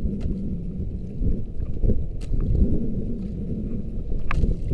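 Small boat under way: a steady low rumble of motor and water, with a few short sharp knocks.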